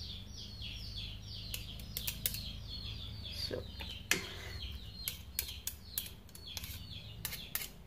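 Birds chirping over and over in short, quickly falling high notes, with scattered light clicks of chopsticks and a spoon against the plate as garlic paste is pushed onto the meat.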